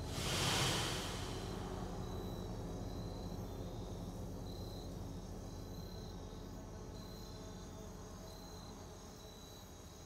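A soft whooshing swell in the first second, then a low, steady suspense drone that slowly fades. Short, high cricket chirps repeat at an even, slow pace over the drone.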